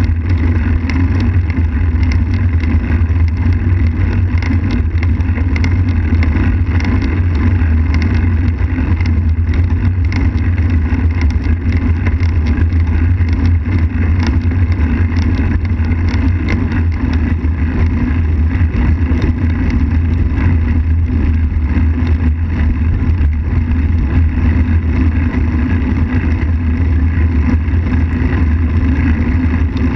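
Steady rumble of wind and road vibration on a bicycle-mounted camera's microphone while a road bike rolls along asphalt.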